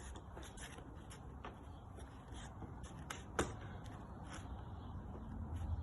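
Locking pliers clamped on a stripped saddle panel screw being turned out: scattered small clicks and scrapes of metal on metal, with one sharper click about three and a half seconds in.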